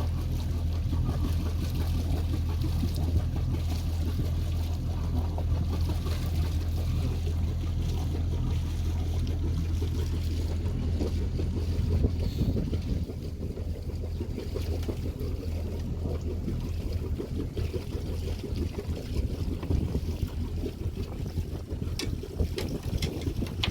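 A boat's motor hums steadily over wind and water noise, then cuts out about halfway through, leaving the wind and water.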